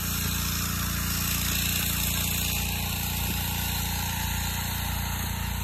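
Water spraying steadily from a hose nozzle onto loose red clay, a constant hiss, over a steady engine-like hum.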